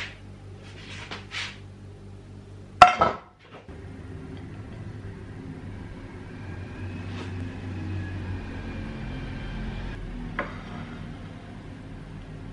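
A single sharp clink of ceramic crockery about three seconds in, after a few light scrapes. It is followed by a steady low hum of room noise, with a small click near the end.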